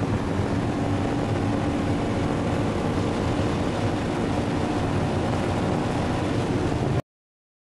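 Sports car engine pulling hard at high speed, heard from inside the cabin together with heavy wind and road noise; the sound is steady and cuts off abruptly near the end.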